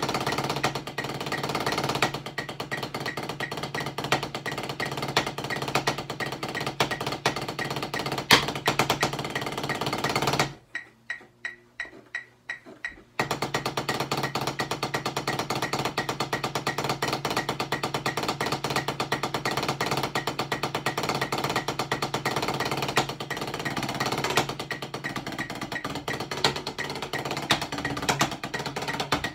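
Drumsticks playing a fast marching tenor (quads) passage on a set of rubber practice pads: a dense run of sharp strokes. About ten seconds in it drops for a couple of seconds to a few separate, quieter strokes, then the fast playing resumes.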